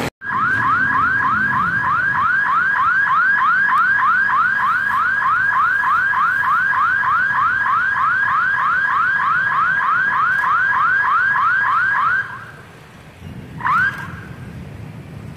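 Electronic warning alarm sounding a fast run of rising whoops, about three a second. It stops about twelve seconds in, and one last whoop comes near the end.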